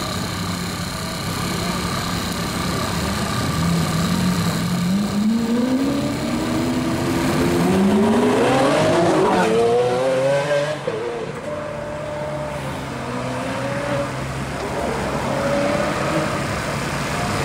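Supercar engine accelerating hard, its pitch climbing in several rising sweeps from about four to ten seconds in, then dropping back to a lower running note.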